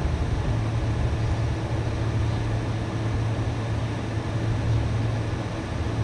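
Steady hum and rush of a Boeing 747 at taxi, its engines at low power, heard from inside the passenger cabin as the aircraft rolls slowly.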